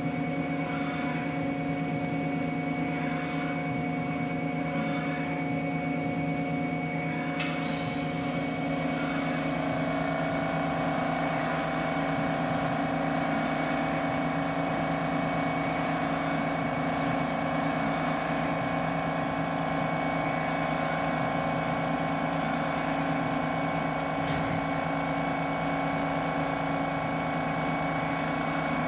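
Haas OM-2A CNC vertical mill running with a steady machine whine made of several held tones. About a quarter of the way in there is a brief click, after which a higher tone joins and the whine grows brighter.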